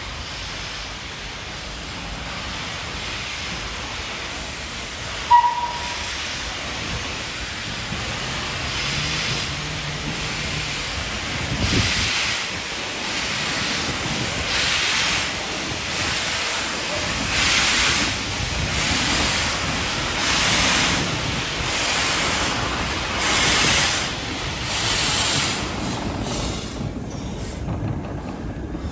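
Steam locomotive working: a steady hiss, then from about twelve seconds in slow, even exhaust beats, roughly one every second and a half. A short high-pitched toot sounds about five seconds in.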